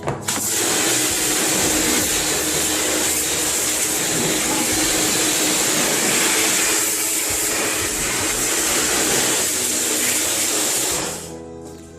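Loud, steady hiss of a high-pressure jet. It starts abruptly just after the beginning and cuts off about a second before the end.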